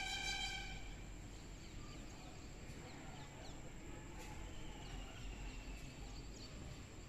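Outdoor background noise, a steady low rumble with a few faint, brief bird chirps. A held, steady tone cuts off just under a second in.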